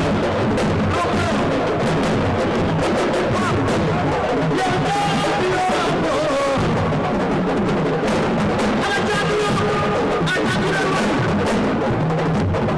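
Music with dense, continuous drumming and a wavering melodic line over it.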